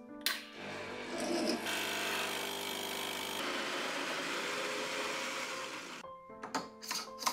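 Baratza electric coffee grinder running, grinding espresso beans into a portafilter for about six seconds. The grinding noise shifts a couple of times and then stops about a second before the end.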